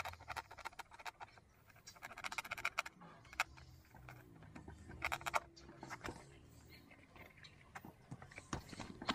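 Handling noise from unpacking a folded rubber mountain-bike tyre: plastic tape strips around it are pulled at and cut with a knife. Short bursts of clicking and scraping come near the start, about two seconds in, and again about five seconds in.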